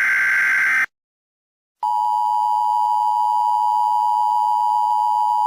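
Emergency Alert System alert audio: the last of the SAME digital header bursts, a harsh data noise lasting about a second, cuts off. After about a second of silence, the loud, steady EAS attention tone begins, roughly two seconds in.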